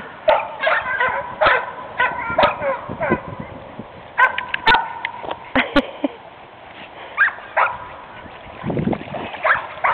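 Labrador dogs barking and yipping in quick clusters of short, high calls, easing off for a few seconds after the middle and starting again near the end.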